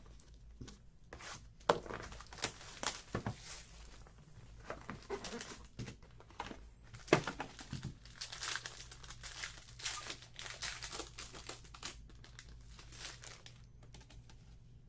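Trading-card packaging being opened and handled: irregular crinkling and tearing of wrappers, with scattered sharper crackles, the loudest about seven seconds in.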